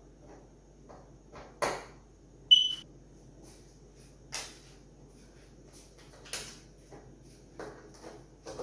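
Scattered clicks and knocks of a screwdriver and screws as a replacement TV power-supply circuit board is screwed down, with one sharp clink about two and a half seconds in that rings briefly.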